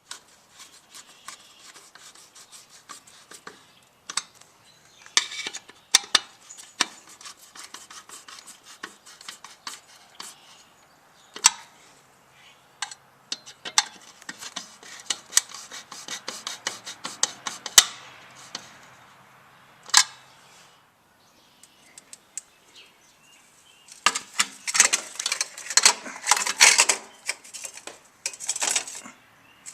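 Metal hand tools and handlebar hardware clinking and rattling, with scattered sharp clicks and a dense run of rapid metallic clicks near the end.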